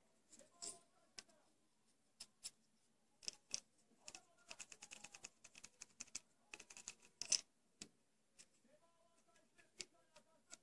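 Metal cylinder rubbing and pressing aluminium foil tape down onto a plastic fishing lure: faint scratchy clicks and crinkles, coming in quick runs through the middle, the loudest near the end of those runs.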